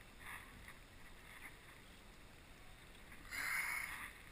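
Handling noise from a halibut being worked in a landing net aboard a kayak: a few faint scuffs, then a louder burst of rustling noise lasting under a second about three seconds in.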